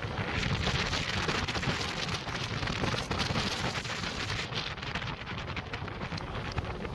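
Wind rushing and crackling over the microphone of a moving Honda motorcycle, a dense steady hiss with the bike's engine under it. The hiss thins a little in the last couple of seconds as the bike slows into a tunnel.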